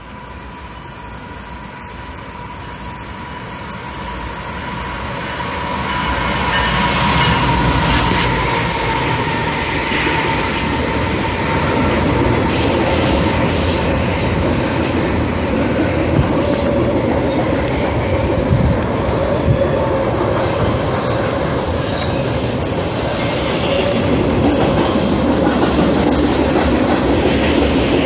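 Freight train approaching and passing close by: the rumble of wheels on rail builds over the first several seconds, then holds loud and steady with scattered clicks of wheels over rail joints. A thin steady squeal of wheels is heard for the first ten seconds or so.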